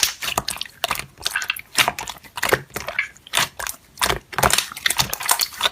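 Hands playing with slime, squeezing and pressing it so that it gives off irregular sticky clicks, crackles and pops, several a second.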